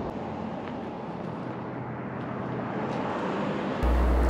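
Steady outdoor background noise, an even rushing hiss with no distinct events, slowly growing louder. Near the end a low steady rumble starts suddenly.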